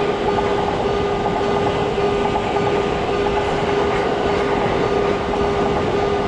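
Train running past: a steady, dense rumble with a held mid-pitched tone through it.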